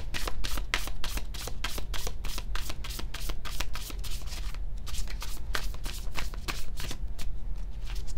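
A deck of tarot cards being shuffled by hand: a quick run of soft card slaps, about seven a second, thinning out over the last second or so.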